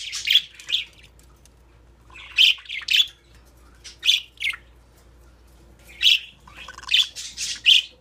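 Budgerigars chirping: short, high-pitched calls in clusters of two or three, coming every second or two.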